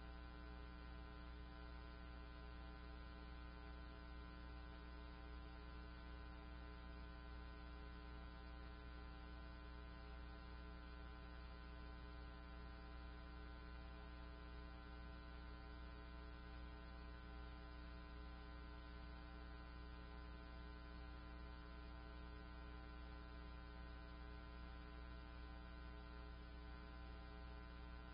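Faint, steady electrical hum with many overtones, never changing.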